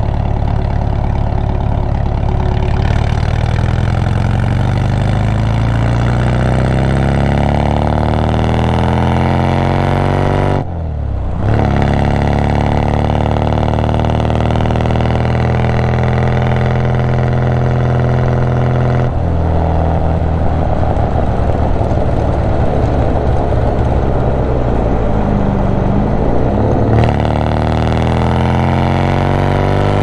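1965 MGB's 1.8-litre B-series four-cylinder engine running, its pitch shifting slowly up and down. There is a brief dip in the sound about eleven seconds in.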